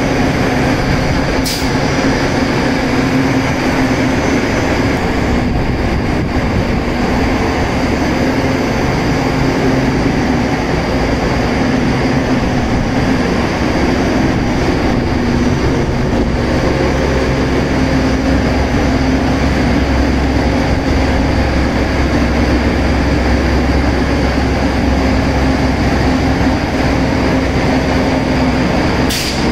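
Pulse-jet bag filter dust collector running, its induced-draft fan giving a loud, steady machine hum. A short sharp burst of the compressed-air cleaning pulse comes about a second and a half in and again just before the end; the bag-cleaning pulses are working properly, knocking the dust down into the hopper.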